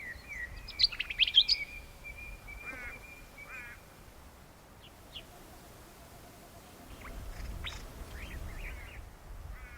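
Wild birds calling: a cluster of high chirps about a second in, then short buzzy trills, and more scattered chirps and trills later, over a low rumble in the second half.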